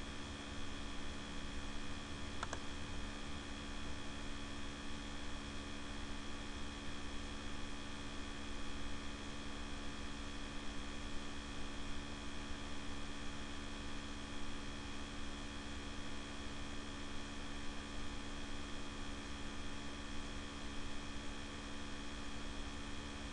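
Laptop cooler fan running with a steady hum over a hiss, with one faint click about two and a half seconds in.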